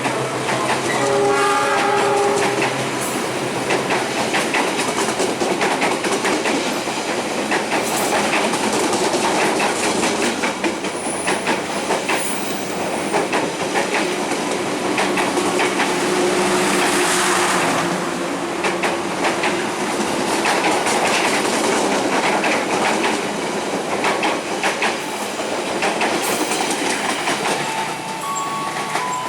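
A train passing through at speed, its wheels clattering over the rail joints in a loud, steady rush. Its horn sounds briefly about a second in.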